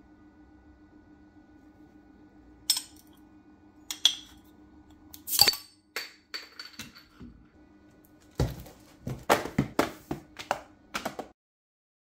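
Metal scraper blade clinking against a glass beer bottle while levering off its crown cap: three separate sharp clinks, the loudest about five seconds in with a brief ring after it, then a quick run of clinks and knocks near the end.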